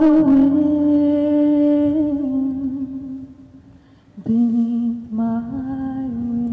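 A woman humming unaccompanied, holding two long low notes: the first sags slightly in pitch and fades over about three seconds, and the second starts a little after four seconds in and is held steady.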